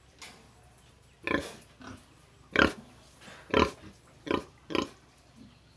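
Young pig grunting close up, a series of short grunts roughly one a second.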